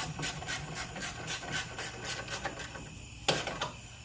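Ratchet wrench clicking in quick, regular strokes, about four clicks a second, as bolts in the car door are run in; the clicking stops after about two and a half seconds, and a single sharp metallic knock follows a little over three seconds in.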